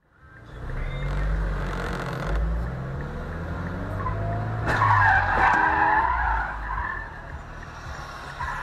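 Car engines revving as cars accelerate hard, then a loud tyre squeal about five seconds in, lasting a second or so.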